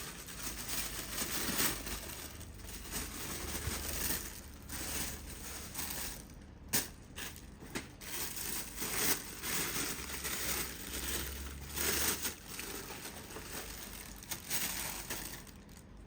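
Plastic packaging crinkling and rustling irregularly as a statue piece is unwrapped, with a few sharp crackles.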